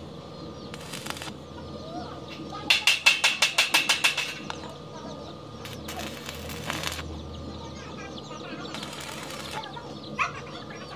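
Stick (electric arc) welder's arc crackling and hissing in short bursts as steel bars are tack-welded to an angle-iron window grille frame. About three seconds in there is a louder rapid run of about a dozen sharp pulses.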